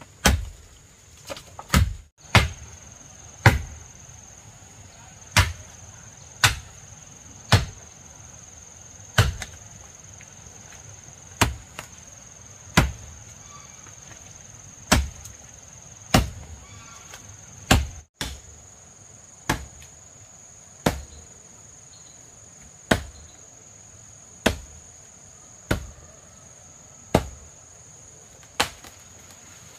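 Axe chopping into a standing tree trunk: about twenty sharp blows, roughly one a second or so. Insects keep up a steady high buzz throughout.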